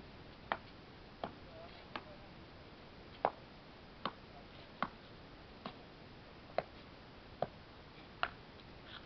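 Sharp, short taps repeating at an even pace, about one every 0.8 seconds, ten in all with one slightly longer gap near two seconds in, over faint background hiss.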